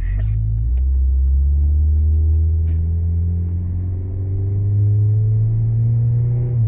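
Chevy S10's exhaust through a Flowmaster side-dump muffler, heard inside the cab as a loud low drone under acceleration, its pitch climbing slowly and dropping sharply at the very end. Studded snow tires add a hum on the road.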